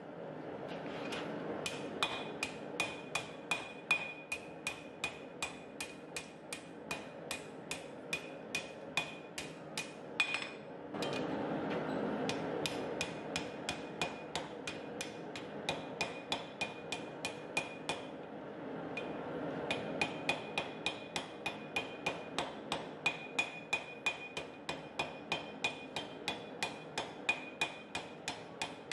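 Ball-peen hammer blows on red-hot mild steel over the anvil horn, about three a second, each with a ringing note from the anvil, bending the curve of a curtain tie hook. The hammering breaks off briefly about ten seconds in and again near eighteen seconds, over a steady rushing noise underneath.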